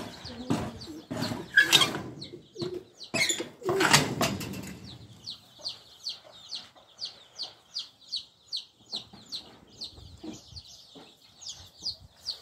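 Chicks peeping steadily, short high falling chirps a few times a second. In the first few seconds several loud knocking and rustling noises sound over them.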